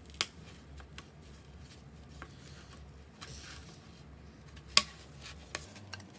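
Parts of a wooden model kit being pressed out of their sheet: scattered sharp clicks and snaps, the loudest about a quarter second in and again near five seconds, with fainter ticks of handling between.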